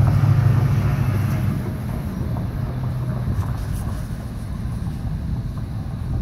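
A passing motor vehicle's low engine drone, strongest at the start and dying away over the first couple of seconds, leaving a low rumble.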